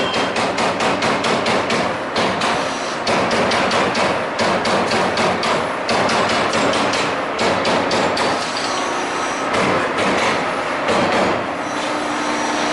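Amada Vipros King 368 II 33-ton CNC turret punch press punching sheet metal: a rapid run of sharp punch hits, several a second, with brief pauses between runs. Near the end the hits thin out under a steadier machine hum.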